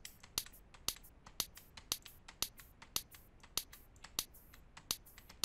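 Short, sharp hand-clap samples played back over and over, about two a second. They are a high-pass-filtered, short-envelope clap layer of a snare sound built from hand claps.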